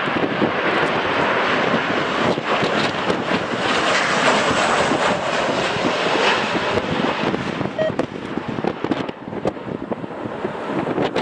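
Jet airliner passing with its engines running, the noise swelling to a peak about four to six seconds in and falling away near the end, with strong wind buffeting the microphone.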